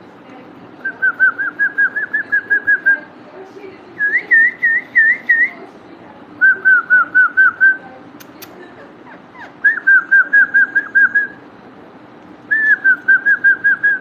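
Cockatiel whistling: five runs of quick, repeated clear notes, about five a second, each note dipping and rising in pitch. Each run lasts one to two seconds.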